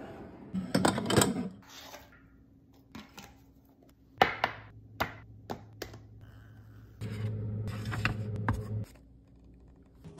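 Glass food-storage containers clinking and knocking as they are handled, then a sharp click about four seconds in as a plastic lid is pressed onto a glass container. A few light knocks follow, and a steady hum runs for about two seconds near the end.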